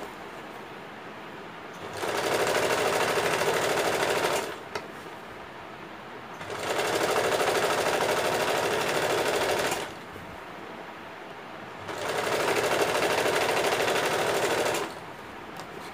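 Electric sewing machine stitching in three runs of about three seconds each, with quieter pauses of about two seconds between them, running a basting seam.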